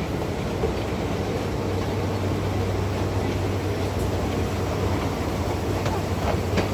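Escalator running with a steady low mechanical hum and rumble. A few light footsteps near the end as the top is stepped off.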